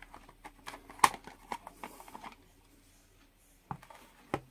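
Handling noise from a Hioki 3030-10 analog multimeter being lifted out of its hard carrying case and set down: a scatter of small clicks and taps over the first two seconds, the loudest about a second in, then two sharper knocks near the end.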